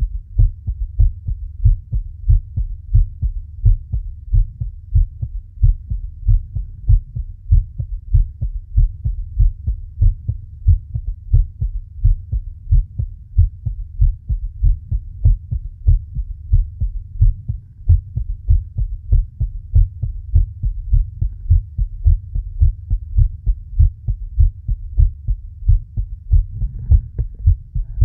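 Human heartbeat: a steady, even rhythm of low, dull thumps that goes on without a break.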